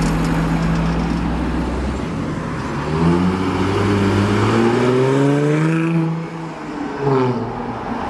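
Jaguar F-Type engine and stock exhaust running steadily, then accelerating from about three seconds in, its pitch rising for a few seconds before fading away. A brief louder burst with falling pitch follows near the end.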